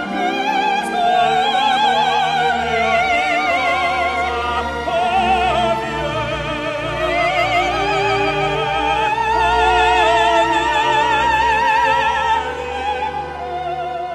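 Music: a high operatic voice singing long notes with a wide vibrato over instrumental accompaniment.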